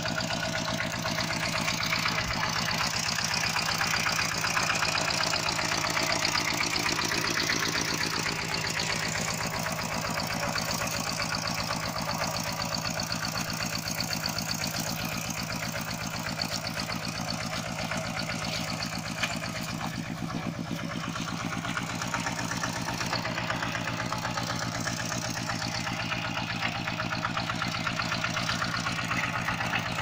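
Single-cylinder diesel engine of a two-wheel walking tractor running steadily under load with a fast, even chug, pulling a plough through a flooded rice paddy.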